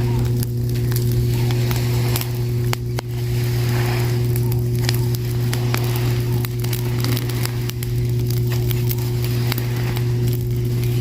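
Fire crackling, with irregular sharp pops and snaps, over a loud steady low hum.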